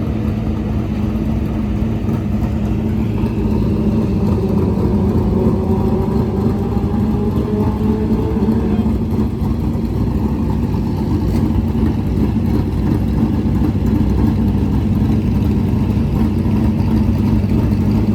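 Dirt late model race car engines running hard, a loud steady drone with a few pitch glides up and down a few seconds in.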